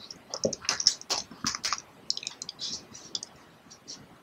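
Typing on a computer keyboard: a run of quick, irregular keystrokes with short pauses between them.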